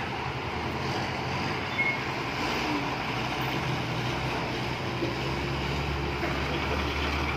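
A bus engine running with a steady low hum over outdoor background noise. The hum gets a little stronger about halfway through.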